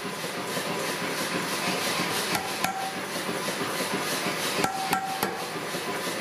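Power hammer striking a glowing bar of high-carbon forklift-tine steel held in tongs, a rapid, even run of blows as the claw hammer head is drawn out. A few sharper metallic clinks with a short ring stand out about two and a half seconds in and again near five seconds.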